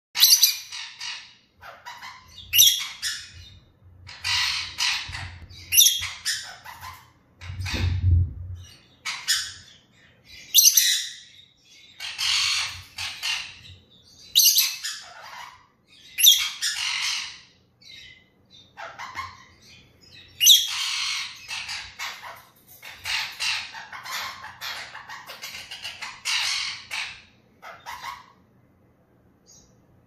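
A pet lovebird calling over and over: loud, shrill squawks and chirps in short bursts, one every second or two.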